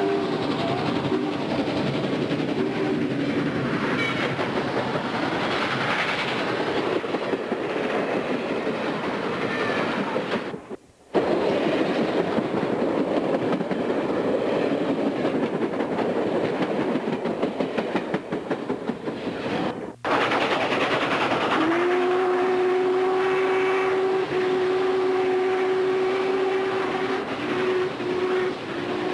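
Steam train running, a steady rushing rumble, with a chime whistle sounding at the start and a long held whistle blast from about two-thirds of the way through to near the end. The sound drops out completely for about a second near the middle and again briefly about two-thirds in.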